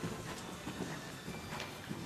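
Hoofbeats of a ridden Oldenburg filly trotting on indoor arena sand footing, a series of separate thuds.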